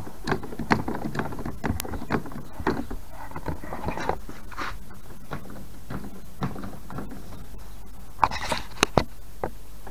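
Scattered clicks and knocks of hands handling a kayak's pedal drive and moving the camera, with a short cluster of sharper knocks about eight to nine seconds in.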